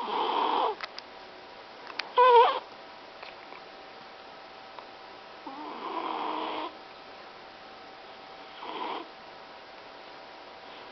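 Cat snoring in its sleep: three snoring breaths, spaced a few seconds apart, the last one fainter. About two seconds in there is a short wavering squeak, the loudest sound.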